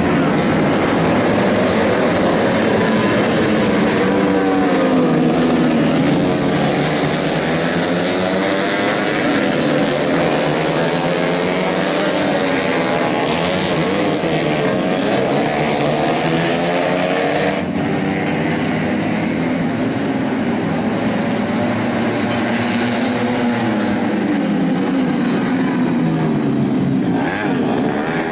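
Several tuned 125cc four-stroke underbone racing motorcycles running at high revs, their engine notes rising and falling as they accelerate, shift and pass. The sound changes abruptly about two-thirds of the way through.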